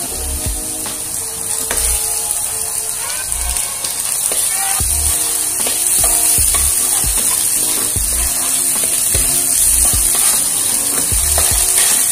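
Chopped garlic and spring onion sizzling in hot oil in a nonstick frying pan, stirred and scraped with a metal spatula, with a steady high hiss, over background music.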